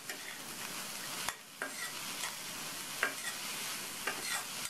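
A spatula stirring shredded cabbage and cooked green gram (mung beans) in a hot stainless steel kadhai, over a steady soft sizzle. A few sharp clicks of the spatula against the pan come about a second and a half in and again about three seconds in.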